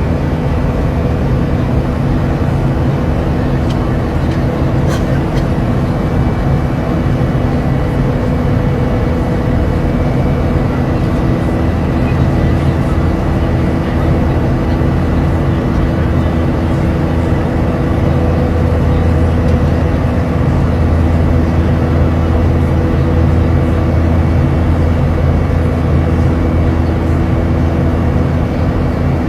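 Steady airliner cabin noise: a continuous engine drone with a deep hum and a few steady tones over it, the low hum growing a little stronger past the middle.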